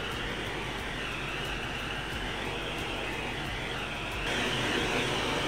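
Gas torch burner burning with a steady rushing hiss while its flame heats a gold bangle red-hot for annealing; the hiss grows louder about four seconds in.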